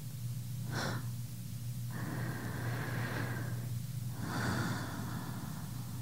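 A woman's slow breathing close to the microphone: a short breath about a second in, then a long breath in and a breath out, over a steady low hum.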